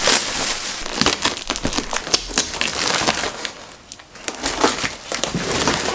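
A large cardboard parcel with loose plastic wrapping being handled and pulled open: a dense run of crinkling plastic and scraping, crackling cardboard, easing off briefly a little before four seconds in.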